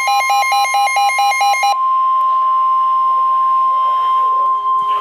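Electronic alert tone warbling rapidly between a low and a high pitch, about four to five alternations a second. It cuts off just under two seconds in and gives way to a single steady tone near 1 kHz, the attention signal of an Emergency Alert System weather warning.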